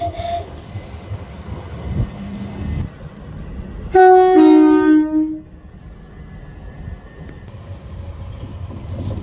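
Train horn giving one two-tone blast about four seconds in, a high note stepping down to a lower one, lasting just over a second, over the low rumble of a train.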